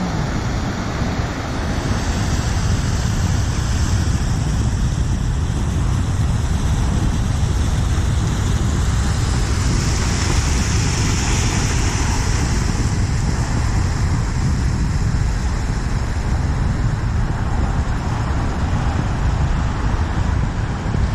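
A car driving through deep floodwater on a road, its tyres throwing up spray with a hissing splash loudest about ten seconds in, over a steady low background noise.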